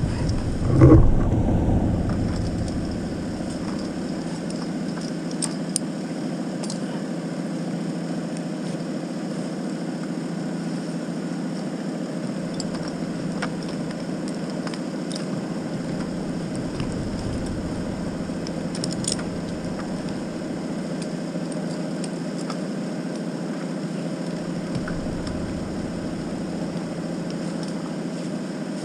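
An engine running steadily at an even speed, with a knock about a second in and a few light clicks over it.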